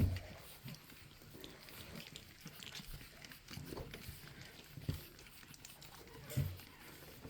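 Four-week-old pug puppies making small vocal noises as they move about, with a few soft thumps, the loudest right at the start and others about five and six and a half seconds in.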